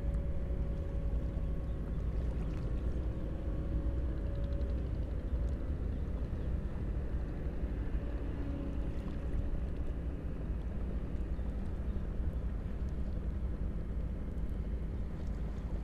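Steady low drone of a boat engine running without change.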